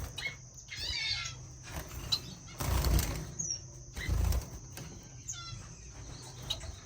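Small caged finches chirping with short, quick calls while wings flutter, with a couple of louder rustling thumps from birds moving in the cage.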